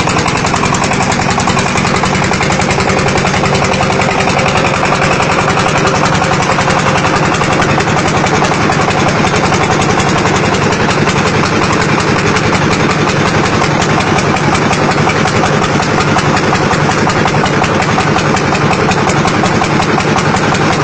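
Red clay brick press machine running steadily: a loud, continuous mechanical noise with a fast, even pulse.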